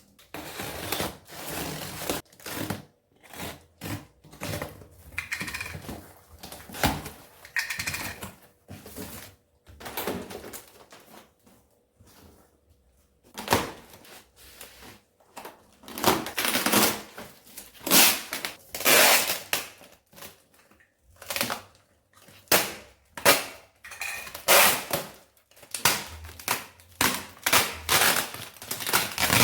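Packaging being handled and unwrapped: irregular crinkling and rustling of plastic and paper in quick, uneven bursts, with a short lull about halfway through.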